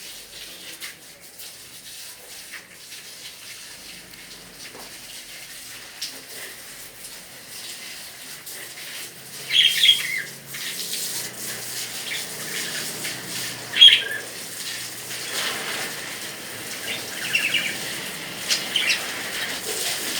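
Lovebirds giving short, sharp chirps in scattered clusters, the loudest about halfway through, over a steady hiss.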